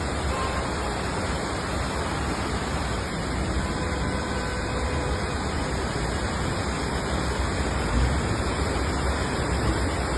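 Floodwater rushing past steadily: an even, unbroken noise with no change in level.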